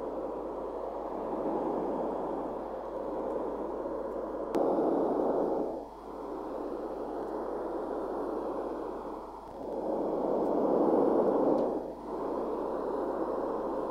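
Steady hiss of test noise played through a smartphone's speaker, held close to the microphone and moved around it, so the level swells and sags. It breaks off briefly about six, nine and a half, and twelve seconds in, as the microphone's pickup pattern is being tested.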